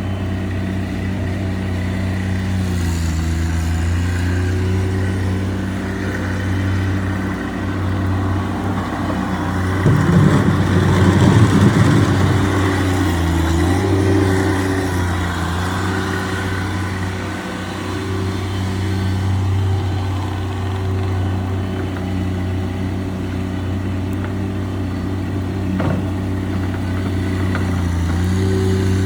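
Snowplow truck engine running steadily, dipping in pitch briefly a few times. There is a louder, rougher stretch around ten to twelve seconds in.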